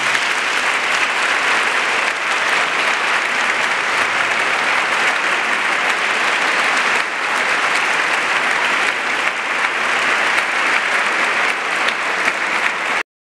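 Audience applauding steadily after an orchestra's final chord, cutting off suddenly near the end.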